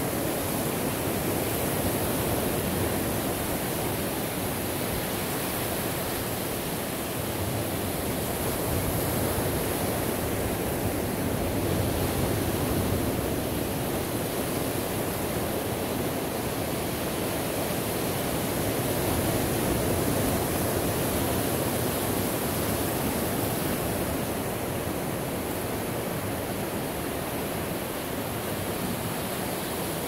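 Ocean surf: a steady wash of breaking waves that slowly swells and eases every several seconds.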